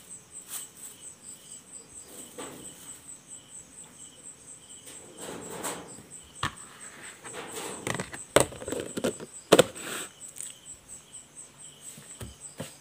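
A cricket chirping in a fast, even, high-pitched pulse, about four or five chirps a second. Over it come several sharp clicks and knocks of handling between about five and ten seconds in, two of them much louder than the rest.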